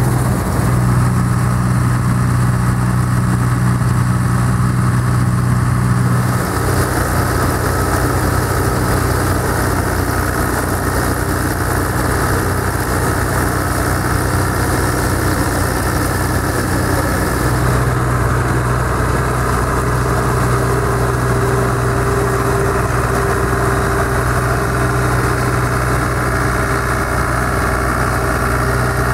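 John Deere 330 combine harvester running under load while harvesting oats, its engine and threshing machinery making a steady, loud drone. The pitch of the drone shifts slightly about six seconds in and again around seventeen seconds, and a steady higher whine joins it about twenty seconds in.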